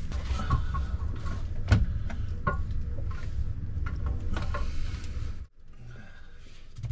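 Knocks and short squeaks of a rope and a heavy part being lowered on a line through a hatch into a boat's engine compartment, over a steady low rumble; it cuts off abruptly about five and a half seconds in.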